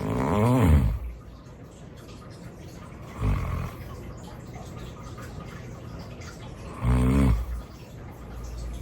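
A man with severe obstructive sleep apnea snoring heavily: three loud snores about three and a half seconds apart. The first is the longest and loudest, with its pitch rising and then falling; the middle one is short.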